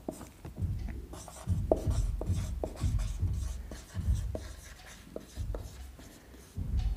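Handwriting with a pen: short irregular scratching strokes and small taps as a line of working is written out.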